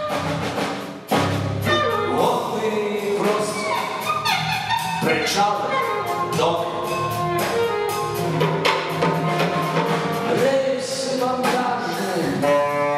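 Live band music: an alto saxophone playing over drums, with a man's voice through a microphone. The music drops away briefly about a second in, then comes back in suddenly and loudly.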